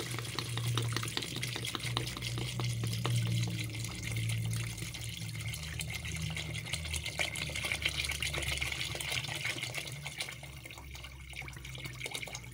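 Water pouring steadily from a plastic jug into an aluminium pot of beef whose broth has cooked down, splashing into the pot as it is topped up, with a low hum underneath. The pouring eases a little near the end.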